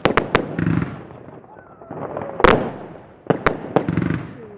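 New Year's fireworks going off: a quick run of three sharp bangs at the start, a single loudest bang a little past halfway, then another quick run of three bangs near the end.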